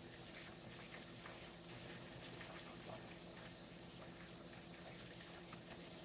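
Chicken wings deep-frying in a skillet of hot oil: a faint, steady crackle of many small pops from the bubbling oil.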